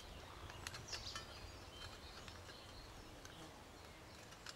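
Quiet outdoor ambience with faint birdsong, and a few light metallic clicks about a second in as a hobo stove's sheet-metal side panel is fitted into its slots.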